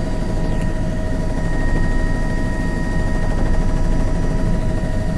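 News helicopter's engine and rotor noise heard from inside the cabin: a steady, dense drone with a few thin, constant high whine tones above it.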